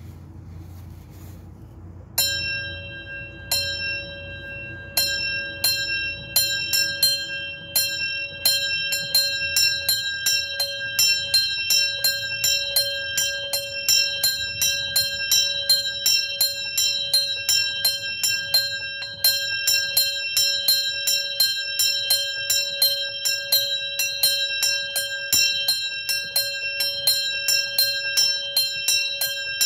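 Small bronze bell, the Grassmayr-cast Bauernglocke, swung up to ring: the first clapper strikes come about two seconds in, a second or so apart, then close up into a quick, even ringing of a few strikes a second, each strike leaving a clear ringing tone.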